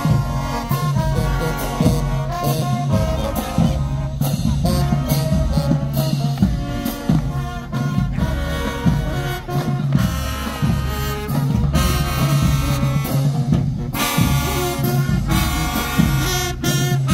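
High school marching band playing while on the march: brass horns over a steady drum beat, with a strong low bass line.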